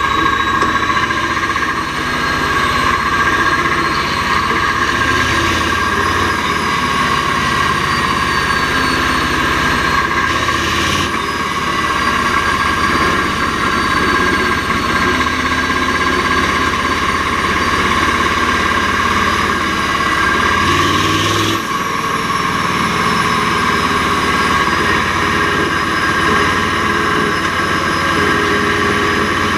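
Mack R-series V8 race truck engine running while being driven, with its note changing briefly twice, about eleven seconds in and again about twenty-one seconds in.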